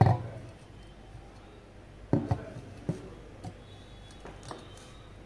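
A sharp knock at the start, then a few lighter knocks and scrapes from about two seconds in, as a wooden spatula stirs onion-tomato masala in a stainless steel pot.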